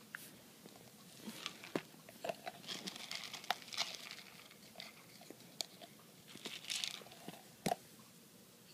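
Scattered small clicks, taps and crinkling rustles of objects being handled, thickest about three seconds in and again around seven seconds, with one sharp tap shortly before the end.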